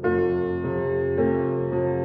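Background music: a slow melody with a new note or chord about every half second.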